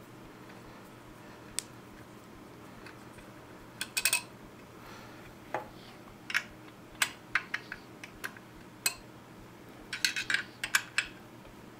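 Scattered small metallic clicks and clinks, a cluster about four seconds in and another around ten to eleven seconds: a hex key and screws working against the steel bucking-spike plate of a chainsaw as its top mounting screw is fitted.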